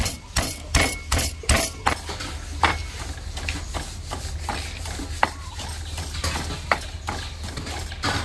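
Kitchen utensils clinking and knocking against cookware: a quick run of sharp taps in the first two seconds, then scattered lighter clicks, over a steady low hum.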